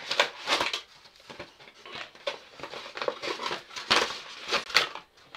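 Packing material rustling and crinkling in irregular bursts as an item is pulled out of a shipping box, loudest at the start and again about four seconds in.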